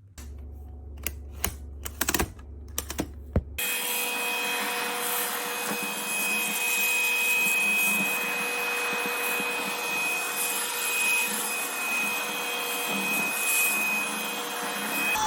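A few sharp clicks, then a cordless vacuum cleaner switched on and running, with a steady rush of air and a constant motor whine.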